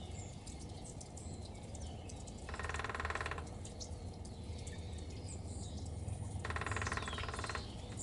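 Woodpecker calling twice, each call about a second long and some four seconds apart, over faint chirps of small birds.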